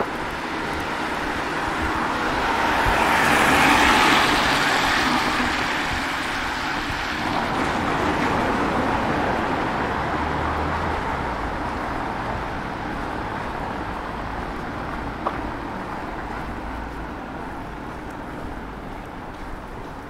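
A car passing on wet road, its tyre hiss swelling to a peak about four seconds in and then slowly fading into steady background traffic. A single short click comes near the three-quarter mark.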